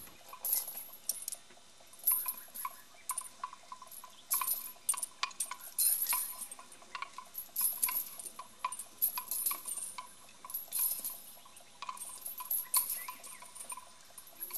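Irregular light metallic clinking and jingling, sometimes several clinks in quick succession, from the iron chain hanging on an Asian elephant as it moves.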